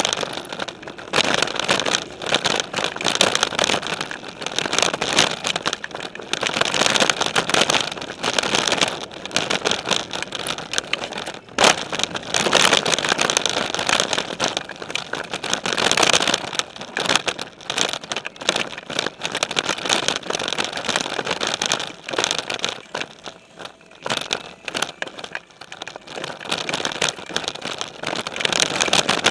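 Specialized Stumpjumper mountain bike ridden over a dirt singletrack, picked up by a camera mounted on its frame: tyres on dirt and the bike rattling and clattering over bumps, with rushing air. The noise swells and fades with the terrain and drops for a few seconds about three quarters of the way in.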